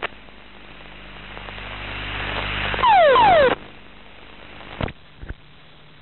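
Fighter-jet cockpit audio during an ejection after an engine failure: a rush of noise builds for about three seconds, then a loud half-second burst carrying two falling tones, followed by two sharp clicks near the end.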